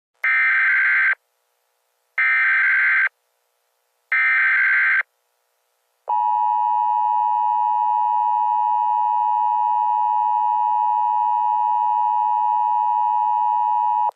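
Emergency Alert System tones: three short bursts of SAME header data, each about a second long, then the steady two-tone EAS attention signal holding for about eight seconds.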